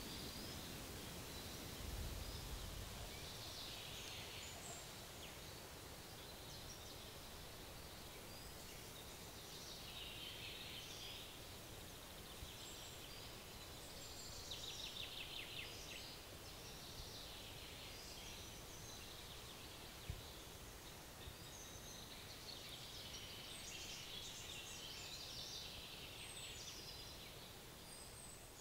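Faint woodland ambience: several birds chirping and singing on and off over a steady low hiss, with a rapid trill about halfway through.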